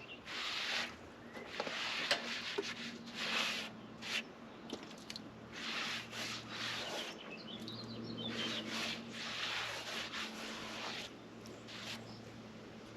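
Homemade bandsaw mill cutting a walnut log, which is very hard to cut: the blade rasps through the wood in uneven swells over a steady low hum from the mill's motor.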